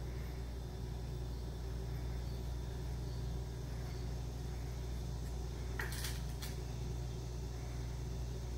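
Steady low background hum, with two short scratchy sounds about six seconds in.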